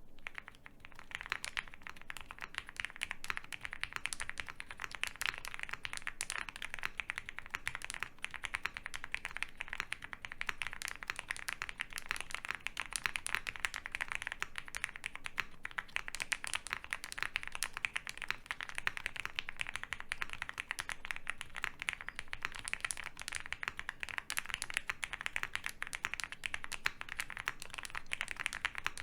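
Fast, continuous typing on an Owlab Mr. Suit mechanical keyboard with lubed Cherry MX Hyperglide Black linear switches on an FR4 plate and CRP Xerox keycaps. The keystrokes run as a dense stream of clicks that starts just after the opening.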